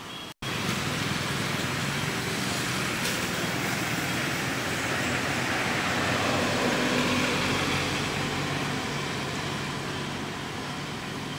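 A motor vehicle passing on a nearby road, its noise building to a peak partway through and then fading.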